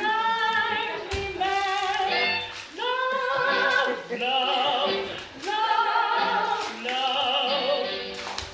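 Music with a woman singing a series of long held notes with a slight waver, a few sharp knocks sounding among them.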